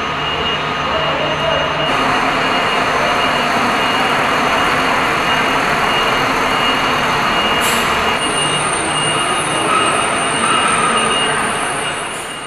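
A loud, steady mechanical noise with a thin high whine, fading in at the start and out near the end.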